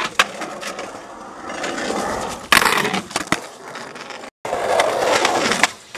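Skateboard wheels rolling on rough concrete, with sharp board clacks and a loud clatter about two and a half seconds in. The sound cuts out abruptly just past four seconds, then rolling picks up again.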